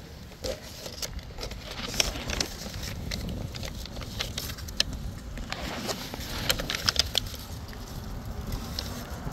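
Scattered sharp clicks and taps over a steady low rumble, like a handheld phone being handled near the mic.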